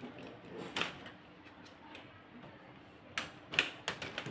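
Scattered sharp clicks and taps of plastic and metal parts being handled on an opened HP LaserJet P1102 laser printer, worked on by hand with a screwdriver: one click about a second in, then a quick cluster of four near the end.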